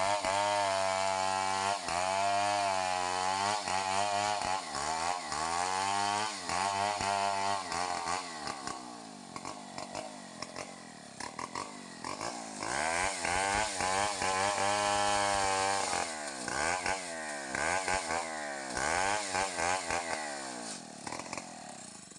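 Stihl 070 large two-stroke chainsaw ripping lengthwise through a log under load, its engine note steady with slight wavering. From about eight seconds in, the throttle is blipped up and down again and again, and the engine drops away near the end.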